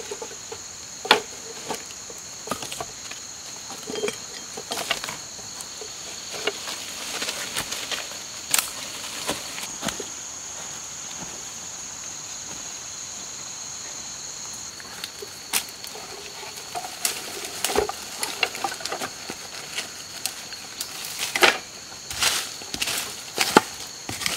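Insects trilling steadily in two high tones, the higher one stopping about 15 s in, over scattered rustles, clicks and knocks from sticks, bamboo and dry leaf litter being handled.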